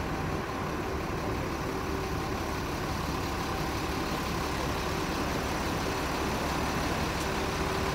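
Steady street noise from road traffic, with the even hum of an engine running.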